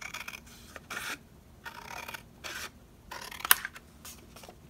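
Scissors cutting through black cardstock in about five short snips, with a sharp click of the blades about three and a half seconds in.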